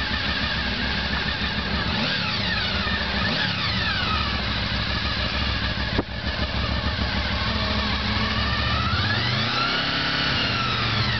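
1999 Honda VFR800's V4 engine idling, revved by hand with the throttle: short blips about two and three and a half seconds in, then a longer rev that rises and falls back to idle around nine to eleven seconds in. A single sharp click about six seconds in.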